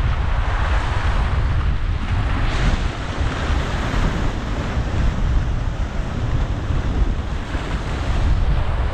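Wind-driven waves breaking and washing against a stone rip rap shoreline in 20-knot winds, the surf swelling and falling in repeated washes. Strong wind buffets the microphone, adding a steady low rumble.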